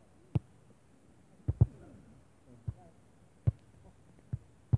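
About seven dull, sharp thumps at irregular intervals, two of them in quick succession about a second and a half in, over quiet outdoor background.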